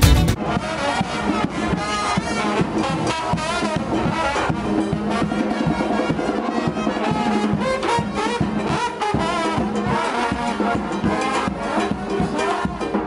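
New Orleans street brass band playing: sousaphone and trombones over bass drum and snare drums keeping a steady beat.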